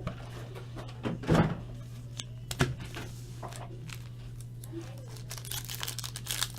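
Trading card box and packs handled on a table: a few thunks, then rustling and crinkling of pack wrappers building near the end, over a steady low hum.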